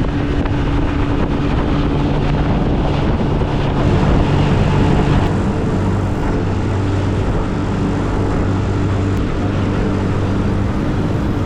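Motorboat's outboard engine running at speed, with wind and water noise over the boat; the engine note steps lower about halfway through.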